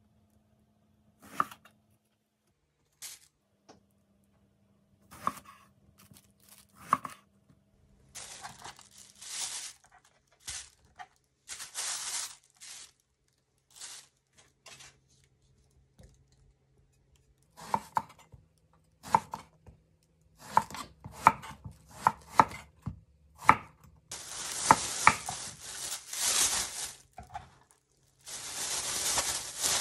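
Kitchen knife cutting long eggplants on a wooden cutting board: single sharp knocks of the blade against the board, then a quicker run of cuts about two-thirds of the way through. In between and near the end, a plastic bag crinkles as the pieces go into it.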